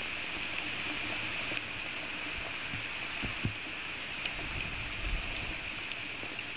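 Steady rain of a thunderstorm falling on the forest, a continuous hiss, with a few dull low thumps around the middle.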